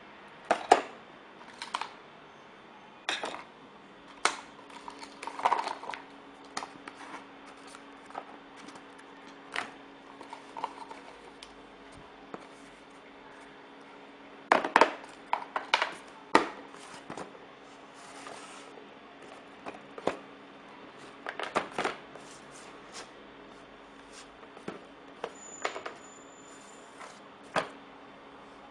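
Irregular clicks and taps from a small plastic flip mobile phone being handled, with a faint steady hum underneath from about four seconds in.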